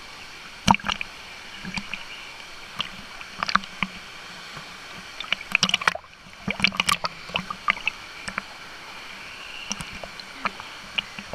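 Water lapping and splashing against an action camera bobbing at the surface of a pool, in many sharp, irregular slaps. Under it runs the steady rush of small waterfalls. The sound goes briefly muffled about six seconds in, as the camera dips into the water.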